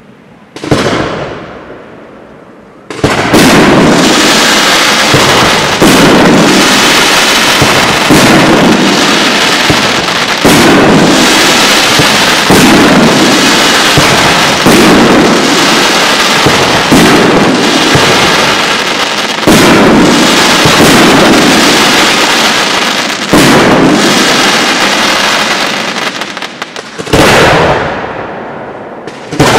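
Aerial fireworks display: a single shell burst about a second in, then from about three seconds a dense, loud barrage of overlapping shell bursts, with a heavier boom about every two seconds. It eases near the end before another burst.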